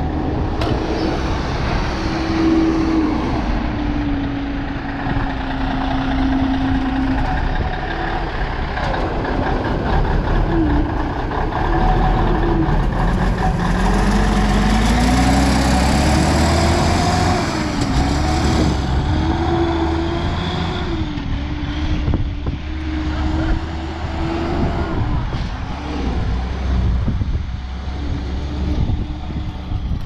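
Heavy diesel truck engine running, its speed rising and falling, with one clear climb in revs about halfway through and a hiss partway through.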